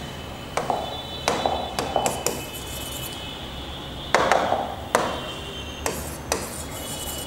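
Hand or pen tapping an interactive touchscreen whiteboard: about eight sharp taps and knocks against the panel as toolbar buttons are pressed and writing begins, the loudest about four seconds in.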